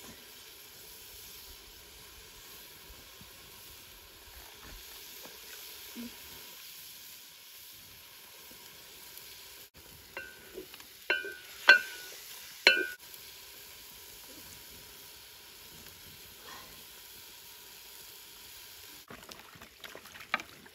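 Tomatoes and onions frying in an aluminium pot over a wood fire, with a faint, steady sizzle. About halfway through, a wooden stirring spoon knocks sharply against the pot four or five times, and the metal rings briefly.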